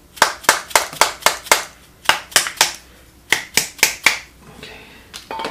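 Hammer tapping rapidly on the metal body of a seized electric fuel pump, about four sharp strikes a second in three short runs, to jar the frozen motor loose.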